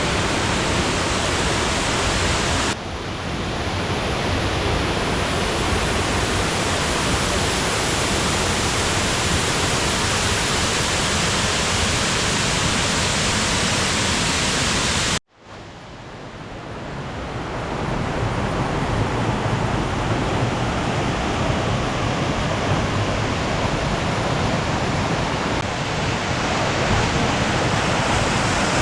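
Waterfall rushing: a steady, loud roar of falling water. It cuts out abruptly for a moment about halfway through, then fades back in over a few seconds, with a smaller dip a few seconds in.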